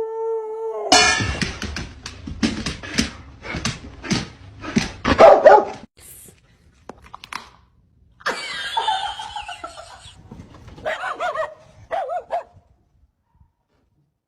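A dog vocalizing: a drawn-out whine-like note that breaks off about a second in, followed by a quick run of barks and yips, and a few shorter calls later.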